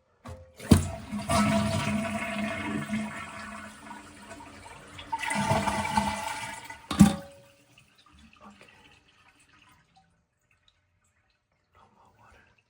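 Toilet flushing with the water supply shut off, draining the tank: a sharp clack as it starts, about six seconds of loud rushing water with a second surge near the end, and another clack as it stops, then only faint trickling since the tank does not refill.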